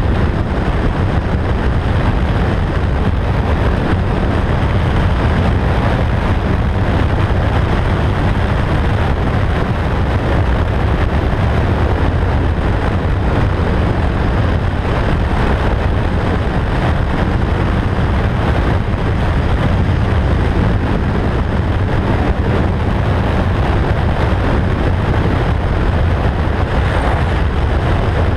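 Motorcycle cruising at a steady highway speed: a constant engine drone mixed with wind rush, with no gear changes or revving.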